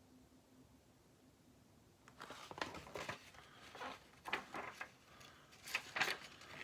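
Faint rustling and crinkling of paper with small irregular taps, starting about two seconds in: the pages of a storybook being turned and handled.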